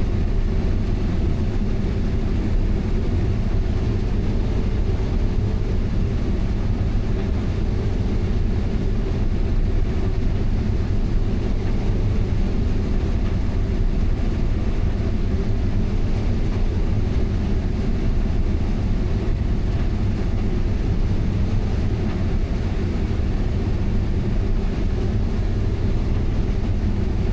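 Diesel engine of a heavy harvest machine running at steady speed, a constant low drone with no changes.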